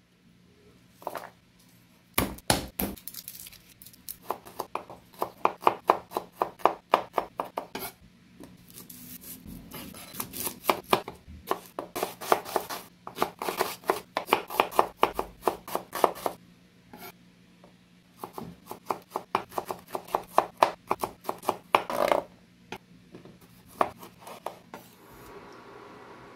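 Chef's knife chopping red onion on a wooden cutting board: quick, even strokes, about five a second, in runs of several seconds with short pauses between.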